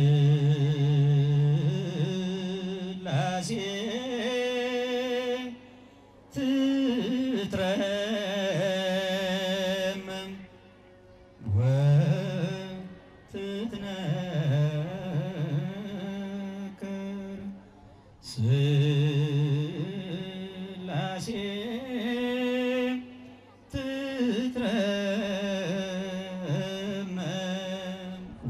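A man singing an Ethiopian Orthodox mezmur solo into a microphone, in long melismatic phrases full of wavering ornaments. The phrases last a few seconds each, with short breaths between them.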